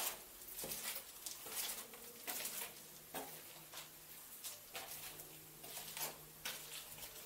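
Footsteps at a walking pace, about one to two steps a second, each a short scuffing crunch. A faint steady low hum sits underneath from about two seconds in.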